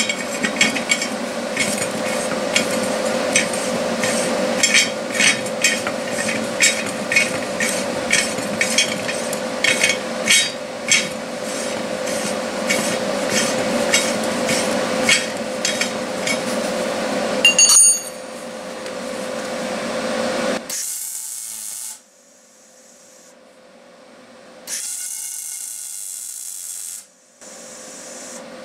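Steel threaded rod being turned out of a nut inside a square steel tube, a rasping metal-on-metal scrape with quick clicks. It ends in a ringing metallic clang. Then come two short crackling bursts from a wire-feed welder tack-welding the tube.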